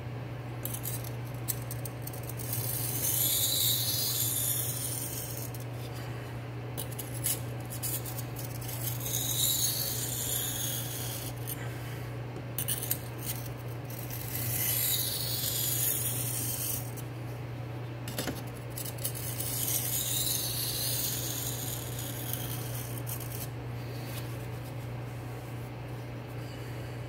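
A D2-steel knife blade in a clip-on angle guide scraping across a whetstone in four slow, two-second strokes, with small clicks between them. These are light passes to take the burr off the edge. A steady low hum runs underneath.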